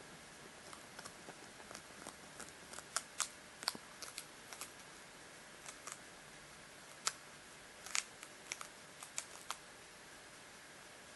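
Hamster gnawing and cracking seeds and a hard seed ball, making irregular sharp crunching clicks that come a few at a time and die away near the end.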